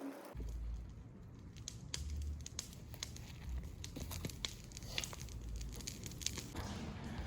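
Scattered light crackles and clicks of someone moving about in dry leaves and twigs while stacking firewood, over a low rumble.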